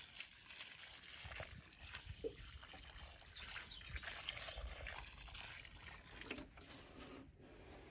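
Water trickling from a plastic watering can onto loose, freshly dug soil, watering in a newly set plant.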